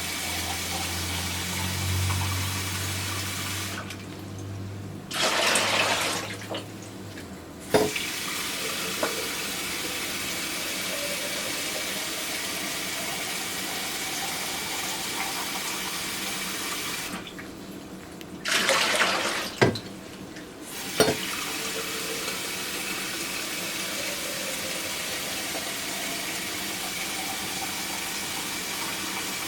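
Faucet running water steadily into a sink. Twice the flow breaks off briefly and comes back as a louder rushing splash, and a few sharp knocks sound around those moments.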